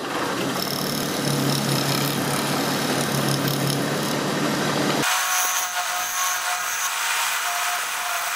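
Wood lathe spinning a resin and jarrah bowl while a hand-held turning tool cuts its rim: a steady scraping hiss of the cut over the hum of the lathe. About five seconds in the sound changes abruptly, the low hum dropping out and a thinner, higher cutting sound carrying on.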